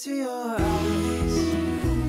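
Background music, a gentle song: a sung note trails off, and low instrumental backing comes in about half a second in.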